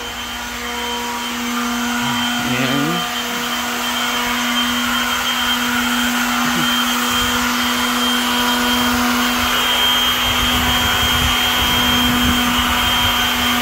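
Steady electric motor hum with a constant whine, getting a little louder about two seconds in.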